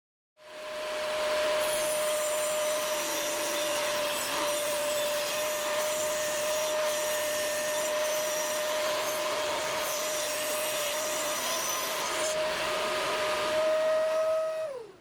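Electric power tool working wood: its motor starts and spins up, runs steadily with a constant whine, then is switched off near the end, the whine dropping in pitch as it winds down.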